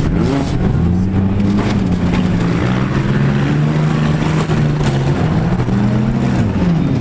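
Compact cars' engines revving hard and rising and falling in pitch, with crunching metal impacts as the cars collide.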